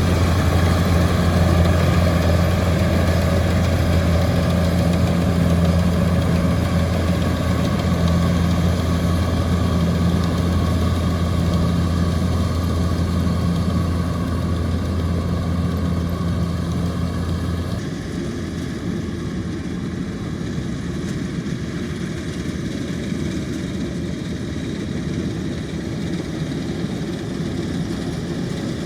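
Kubota DC-105X combine harvester's diesel engine running steadily with a deep hum. About eighteen seconds in the sound changes abruptly: the deep hum drops out, leaving a slightly quieter, rougher machine noise.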